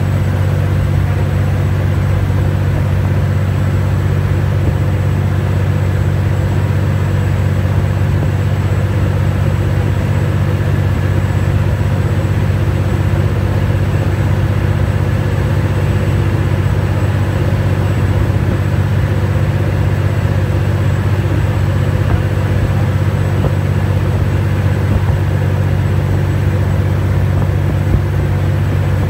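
High-speed passenger ferry underway at cruising speed: a loud, steady low engine drone with an even hiss above it.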